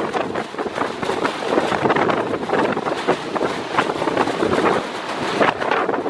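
Storm-force Föhn wind blasting across the microphone: a loud, continuous rushing roar that surges and eases irregularly with the gusts.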